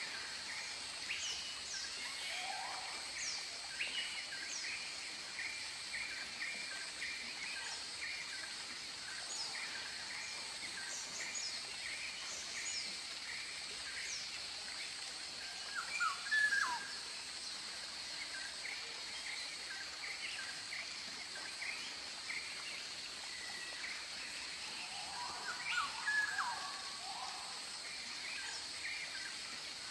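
Tropical forest ambience: a dense chorus of bird calls (short chirps, rapid trills and falling whistles) over a steady high insect hum, with two louder bursts of calls about halfway and near the end.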